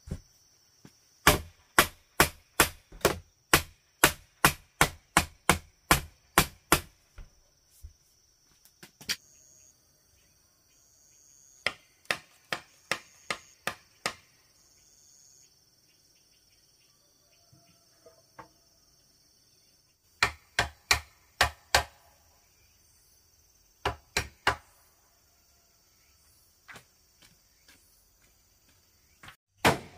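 Repeated sharp blows on bamboo. A quick run of about three strikes a second lasts several seconds, followed by shorter bursts of four to six strikes with pauses between. Insects drone steadily at a high pitch in the background.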